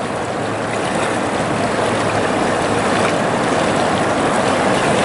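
Steady rush of river water flowing over a rocky bed.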